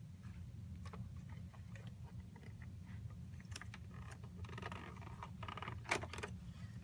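DDR3 memory sticks being pulled out of their slots on the motherboard and handled: faint scattered clicks and a stretch of plastic scraping, with a sharper click just before the end, over a steady low hum.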